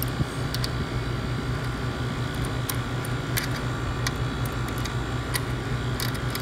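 Refrigeration condensing unit running with a steady electric hum, with a few light clicks of a service wrench on the compressor's service valve stem as the valve is turned toward front-seated.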